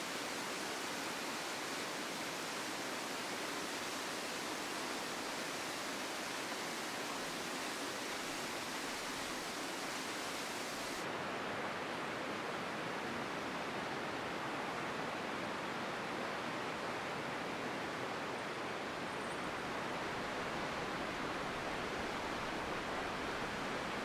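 Steady rushing of water from a partly frozen waterfall, an even hiss without any rhythm. About eleven seconds in, its highest hiss drops away suddenly and the rush goes on a little duller.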